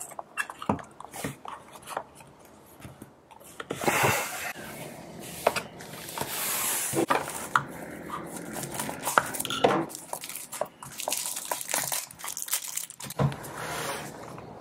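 Cardboard perfume boxes being handled and opened, rustling and scraping, with scattered small clicks and knocks as boxes and glass bottles are set down. The loudest rustles come about four and about six to seven seconds in.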